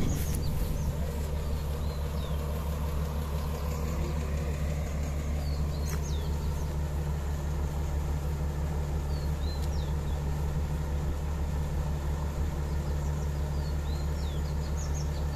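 Kobelco Yutani YS-750-2 excavator's diesel engine idling steadily, with birds chirping briefly several times.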